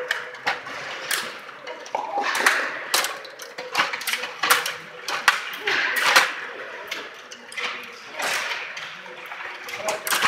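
Stiga table hockey in play: the control rods are pushed and twisted, and the plastic figures and puck clack against each other and the boards in irregular sharp clicks and rattles.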